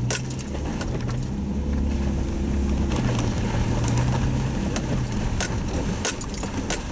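Car driving, heard from inside the cabin: a steady low engine hum and road noise, with a few light clicks and rattles near the end.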